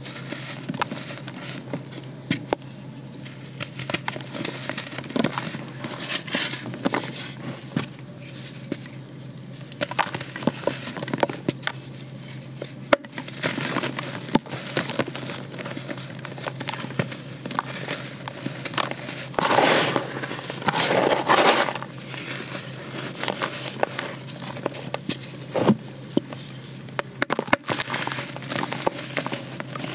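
Dry lumps of red dirt crushed and crumbled by hand: dense crunching and crackling with sharp snaps as the clods break, crumbs falling back into a plastic basin. The crunching is loudest for a couple of seconds about twenty seconds in.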